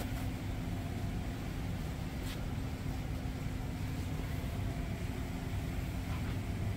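CEMCO UF-2137-SE wide belt sander running, its motors giving a steady, even hum with a low drone.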